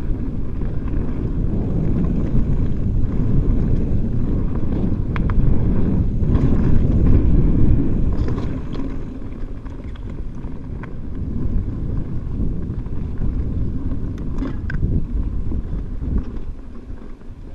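Mountain bike ridden fast on dirt singletrack: wind rushing over the camera microphone and tyres rumbling on the dirt, loudest about six to eight seconds in, with a few sharp clicks and rattles from the bike over the trail.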